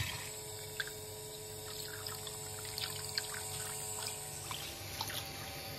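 Cold tap water running into a bowl of rice being rinsed, with small splashes as the grains are swirled by hand.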